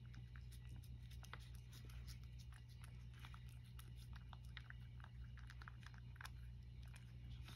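Cat eating from a wooden tray: faint, irregular small clicks of chewing and licking, over a steady low hum.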